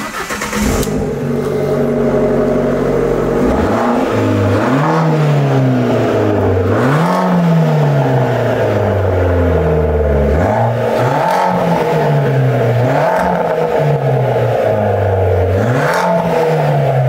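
Alfa Romeo Giulietta's 1.4 turbo petrol four-cylinder with a straight-through centre pipe and sport rear silencer: it starts up, idles, then is blipped about six times, the pitch climbing and falling each time. A sporty but not intrusive exhaust note.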